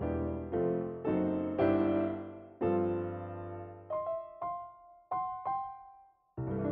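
Background piano music: chords of notes that ring and fade, thinning to a few single high notes about four seconds in, then a brief gap before the music starts again near the end.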